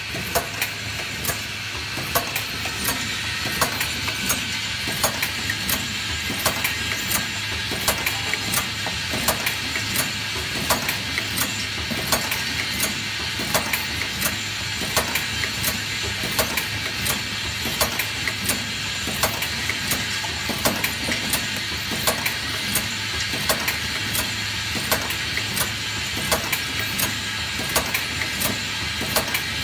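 Automatic eye-drop bottle filling and capping machine running: a steady motor hum under a regular clatter of sharp clicks, about two a second, as the star wheel indexes bottles along the conveyor through the filling and capping heads.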